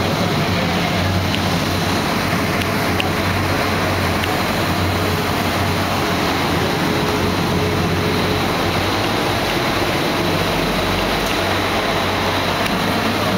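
A boat's engine running steadily under way, a constant low hum under an even rush of water and wind.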